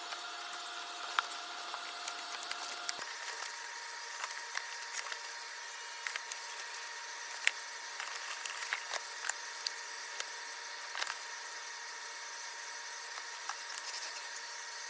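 Cardboard box and plastic bubble wrap being handled while unpacking: scattered clicks and crinkles over a steady hiss and faint hum.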